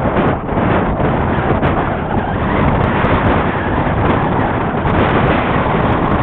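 Steady rushing of strong wind blowing across the microphone, with no motor tone in it.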